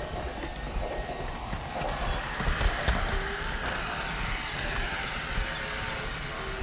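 Battery-powered Eztec toy train running along plastic track: a steady motor whir and rumble with irregular small clicks from the wheels, heard from on board the train.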